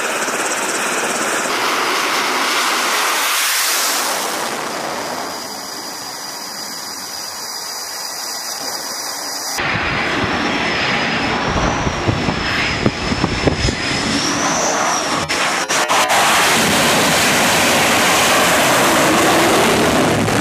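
Jet engines on an aircraft carrier flight deck: a steady rush of engine noise, which about ten seconds in switches abruptly to louder jet noise with a high whine that wavers in pitch.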